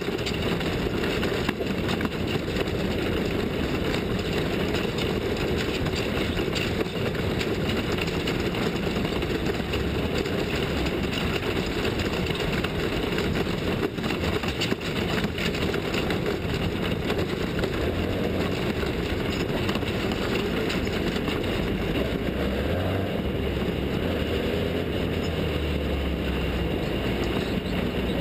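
Off-road racing vehicle's engine running steadily.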